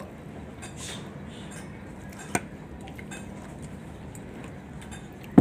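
Metal spoons and forks scraping and clinking against a plate while eating, with a sharp clink about two seconds in and another near the end.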